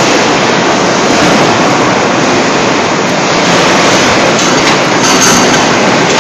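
Loud, steady machine din from hydraulic die forging hammers and presses working in a forge shop, with no single hammer blow standing out.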